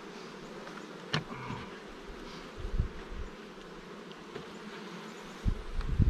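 A crowded colony of honey bees buzzing in a steady hum around a swarm-trap box opened for its combs to be lifted out. A sharp click sounds about a second in, and a low rumble comes in near the end.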